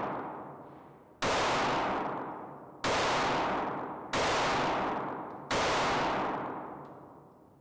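Springfield Armory Hellcat 9mm micro-compact pistol fired four times at a slow, even pace, about one shot every one and a half seconds. Each shot has a long echoing tail that fades before the next, from the walls of an indoor range.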